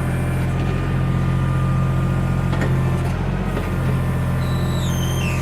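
Backhoe engine running steadily with a low, even drone. Near the end a high squeal steps down in pitch.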